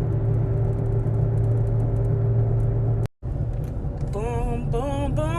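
Car engine and road noise heard inside the cabin: a steady low hum with a constant drone. It cuts off briefly about three seconds in, then resumes, and near the end a wavering melodic voice rises over it.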